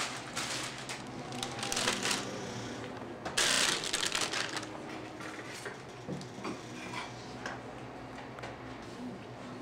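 Small mechanical clicks and rattles of handling over a steady low hum, with a brief loud rush of noise about three and a half seconds in.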